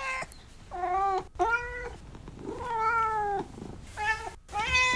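A house cat meowing several times in a row, each meow a short call that bends in pitch.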